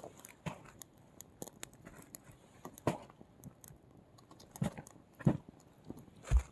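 Twigs and dry leaves crackling and popping irregularly as they burn in a folding steel twig stove, with a few louder knocks in the second half.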